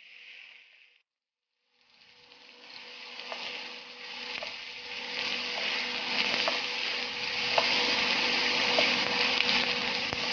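Onion, garlic and ginger sizzling in hot oil in a pan. The sizzle stops briefly near the start, then comes back and grows steadily louder. About once a second there is a light click of the spatula against the pan.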